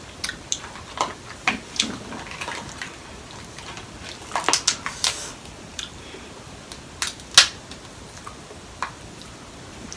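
Sharp, irregular cracks and snaps of boiled seafood shells being broken open by hand, in scattered bursts; the loudest crack comes about seven and a half seconds in.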